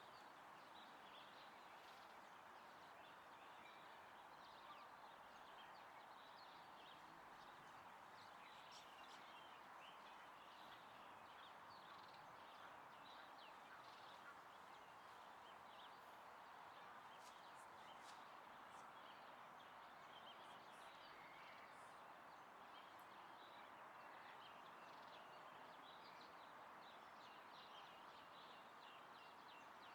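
Faint outdoor nature ambience: a steady soft rushing hiss with many small, high bird chirps scattered through it.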